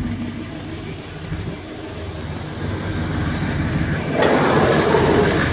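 1986 Chevy C20 pickup's engine running at idle, a steady low hum. About four seconds in, a louder, broader noise joins it and carries on.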